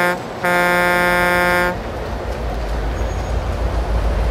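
Train horn sound effect: a short blast, then a longer one of about a second and a half on the same steady pitch, followed by a low rumble that grows steadily louder.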